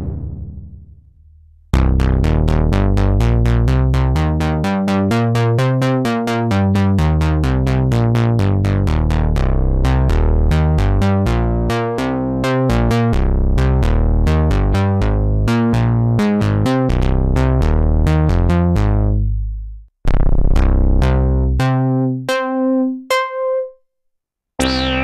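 Sequential Pro 3 analog synthesizer playing a fast run of short, evenly repeating notes over a moving bass line. The pattern stops about 20 seconds in. A short phrase and a few ringing notes follow, then after a brief silence a new sound starts at the very end.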